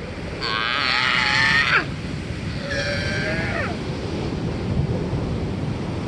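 Sea lions barking twice over steady ocean surf: a long, loud call about half a second in that ends with a falling pitch, then a shorter call about three seconds in.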